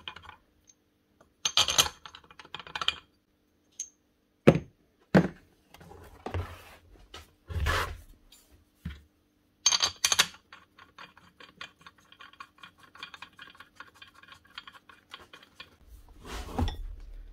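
Steel bolts and tools clinking and knocking against the breaker hammer's metal housing as the housing bolts are fitted. A run of rapid ticking clicks follows for several seconds, starting about ten seconds in.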